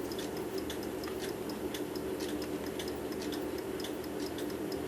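Mechanical clock ticking steadily and quickly, about four ticks a second, over a steady low hum.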